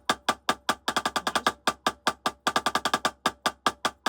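Drumsticks playing alternating single strokes in an even rhythm: two beats of 8th notes, then two beats of twice-as-fast 16th notes, repeated. The strokes are crisp and sharp.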